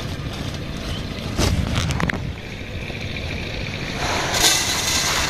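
Wind buffeting the microphone, an uneven low rumble, with a louder rustling hiss that comes in about four seconds in.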